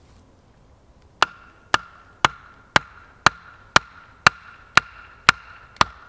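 An axe head hammering the top of an upright wooden pole to drive it into the ground: ten evenly spaced knocks, about two a second, each with a short ringing tone from the struck wood.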